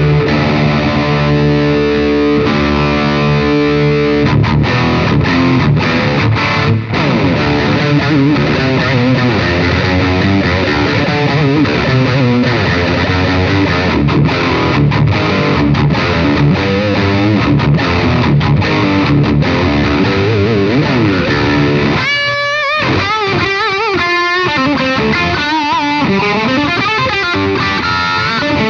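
Electric guitar through a Caline Jaguar Classic High Gain Distortion pedal with scooped mids and boosted bass, played as heavy rhythm riffs in drop D. A ringing chord gives way to chugging riffs with sudden stops, and about 22 seconds in a lead line with vibrato bends.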